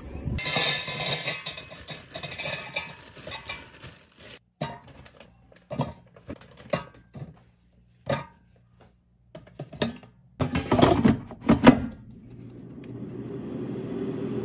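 Rustling and light clicks and knocks as chicken strips and fries are handled into an air fryer basket, then the air fryer running, its fan noise rising steadily over the last couple of seconds.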